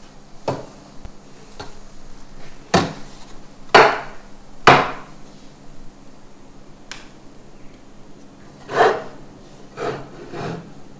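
Knocks and clunks of a power inverter's finned metal case being handled and set down on a workbench, about eight in all, the loudest three between about three and five seconds in.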